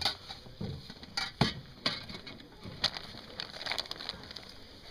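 Scattered clicks, knocks and rustles of kayak gear being handled and loaded, a few sharper knocks among them.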